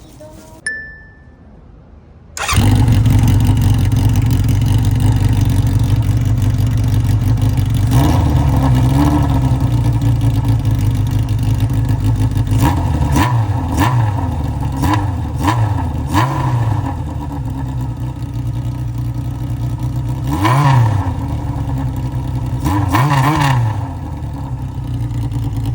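Honda CB750F's air-cooled inline-four running through a short aftermarket muffler fitted with an inner silencer baffle. The engine cuts in about two seconds in and idles, with quick throttle blips and two longer revs that rise and fall near the end.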